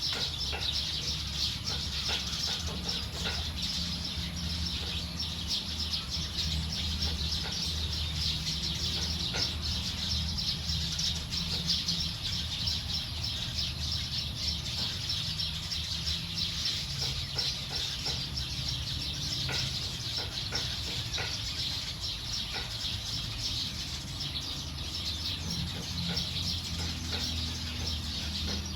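A large flock of small birds chirping and chattering together without a break as they settle to roost, many calls overlapping into one dense chorus. A steady low hum runs underneath.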